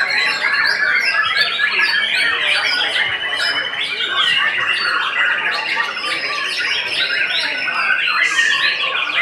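Several caged white-rumped shamas (murai batu) singing at once, a dense tangle of overlapping loud whistles, chirps and rapid trills. A fast rattling trill runs through the second half.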